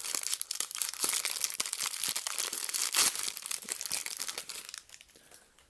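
Thin plastic wrapping crinkling and crackling as a blind-box figure is unwrapped by hand, dying down to a few faint rustles near the end.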